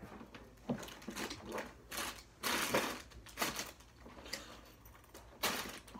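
Irregular clicks, knocks and rustles, about ten separate ones, with a longer, louder stretch of rustling about two and a half seconds in.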